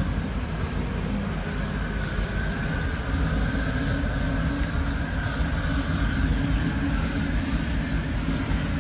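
Small excavator's engine running steadily while its bucket is being cleaned, with a faint wavering whine above the drone.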